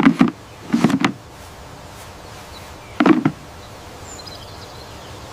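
Three short knocks: one at the start, one about a second in and one about three seconds in, over steady outdoor background noise.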